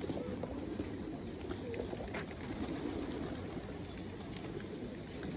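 A large flock of feral pigeons cooing in a steady, dense murmur, with wings flapping here and there as birds take off and land.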